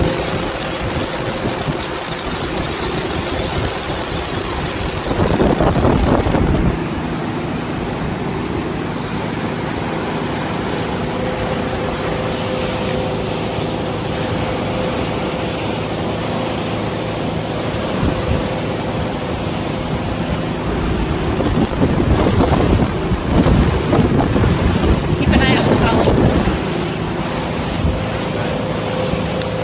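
A motorboat's engine running steadily at towing speed while pulling a water skier, over the rush of the boat's wake. Gusts of wind buffet the microphone about five seconds in and again for several seconds in the last third.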